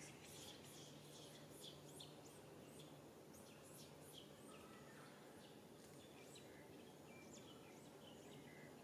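Faint background of small birds chirping: many quick, high, downward-sliding chirps scattered throughout, over a steady low outdoor hiss.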